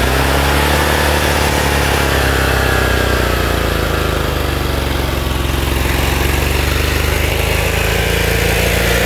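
Lawn tractor's small petrol engine running steadily, its pitch wavering slightly.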